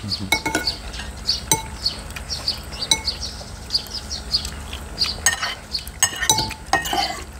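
Metal spoons and a fork clinking and scraping against ceramic soup bowls while eating: scattered clinks, bunched more closely near the end. A small high chirp repeats steadily in the background.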